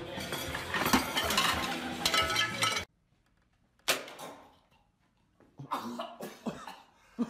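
Plates and a tall tiered serving stand clattering and crashing, with many clinks of crockery, for about three seconds. After a sudden cut to silence comes a single sharp snap, then a few light knocks near the end.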